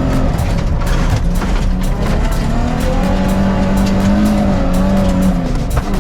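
Car engine revving hard on a rally stage, its pitch rising and falling as the driver works the throttle, with many sharp clicks and knocks from the rough ground over it.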